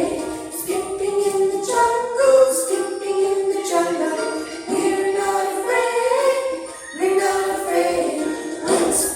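A children's song: voices singing a melody over music with jingling bells.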